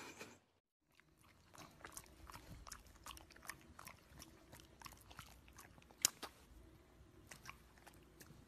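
A bulldog chewing, faint irregular small crunches and mouth clicks, with one sharper click about six seconds in.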